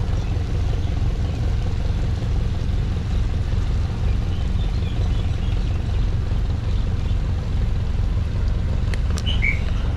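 Houseboat's engine running with a steady low drone as the boat moves along the backwater.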